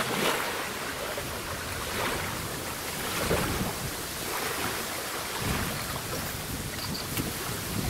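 Gusty wind buffeting the microphone, with small waves washing and lapping onto a sandy shore.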